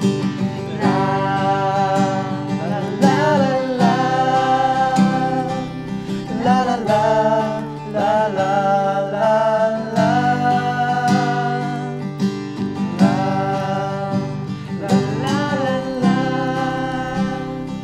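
Acoustic guitar strummed as accompaniment to several voices singing a Cantonese pop song together, with long held notes.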